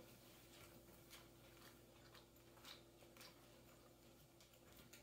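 Near silence: room tone with a faint steady hum and faint, irregular soft clicks about twice a second.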